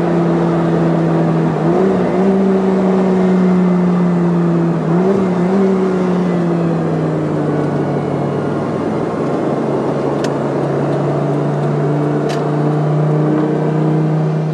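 Sports car engine running at steady mid revs, with two brief wobbles in pitch about two and five seconds in. The revs then ease down gradually and hold a lower, steady note.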